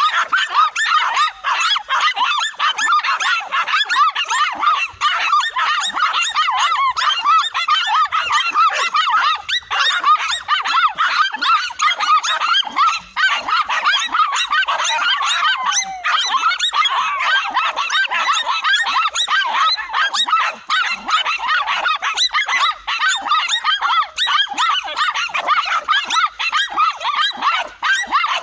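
Several dogs barking and yapping nonstop in high, overlapping calls as they hold a tegu lizard at bay.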